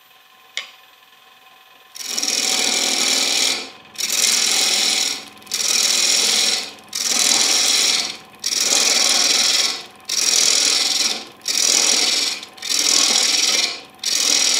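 Hurricane carbide roughing tool cutting a spinning, still out-of-round wooden bowl blank on a Robust American Beauty wood lathe. About two seconds in, a run of about nine rough scraping plunge cuts begins, each a little over a second long with short breaks between. Before that there is only the lathe's quiet hum and a small tick.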